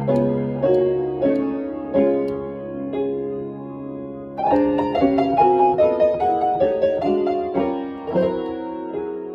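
Upright acoustic piano playing a blues in stride-piano style: held chords and notes at first, then a run of quicker notes from about halfway through.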